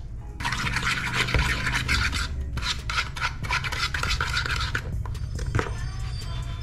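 Dry spice rub being shaken from a jar and stirred with a spoon in a plastic mixing bowl: gritty scraping and rustling in two stretches of about two seconds each, with a brief pause between.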